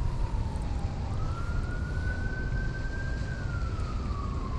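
An emergency vehicle siren wailing: a single tone slides slowly down, jumps back up about a second in, climbs slowly and falls again. A steady low rumble runs underneath.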